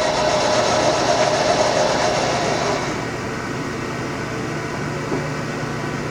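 Sharp LMV-50 vertical milling machine's variable-speed head running in low range: a steady mechanical hum with a whine. The whine fades and the noise drops a little about three seconds in.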